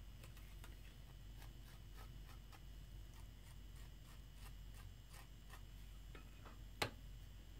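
Faint, irregular scratchy ticks of a scoring tool raking the edge of a soft clay slab, roughening it so the slab will join to another piece. One sharper click comes near the end.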